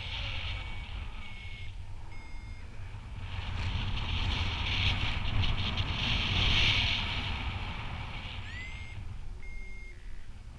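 Wind buffeting the microphone of a paraglider in flight, growing louder in the middle. Short electronic beeps from a variometer sound through it now and then, two of them sliding up in pitch near the end.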